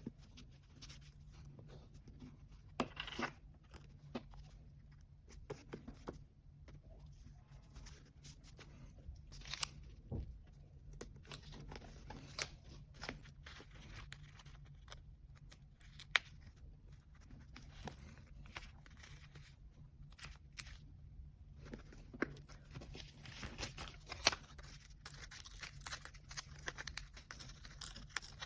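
Close-up sounds of paper journal collage work: scattered small taps, rustles and short peeling and tearing sounds of stickers and paper, over a steady low room hum.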